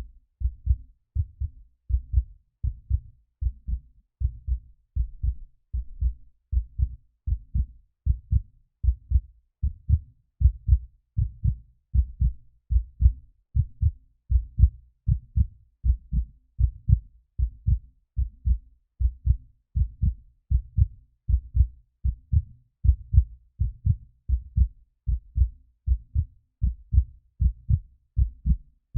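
Human heartbeat, a steady lub-dub of paired low thumps repeating a little faster than once a second.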